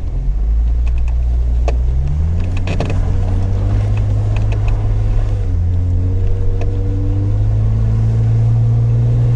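Off-road 4x4's engine running under load, its pitch stepping up about two seconds in and again past the middle, with scattered sharp clicks and knocks early on.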